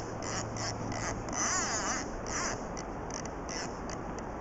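Salmon fly reel's ratchet buzzing in short irregular bursts as a hooked salmon pulls line from the bent rod, with a steady low rumble of wind and river underneath.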